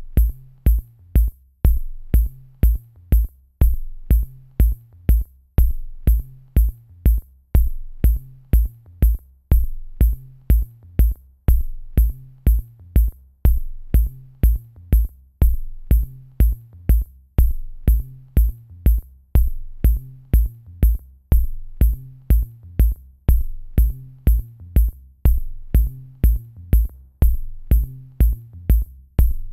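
Electronic music with a steady drum-machine beat, about two hits a second, over a deep repeating bass line.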